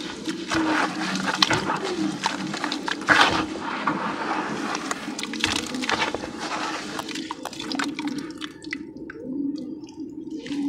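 Bare feet squishing and sloshing in a bucket of wet sand and water, with irregular splashes and squelches. Near the end this thins to sparse crackles as handfuls of wet sand are lifted and crumbled.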